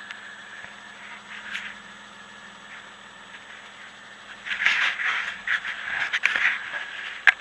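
A faint steady hum, then from about halfway in irregular rustling and scraping of the camera being handled against clothing, with a sharp click near the end.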